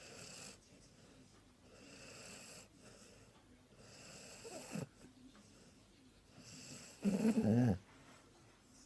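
Sprollie (springer spaniel and border collie cross) snoring in its sleep: softer snoring breaths about every two seconds, then one very loud snore about seven seconds in.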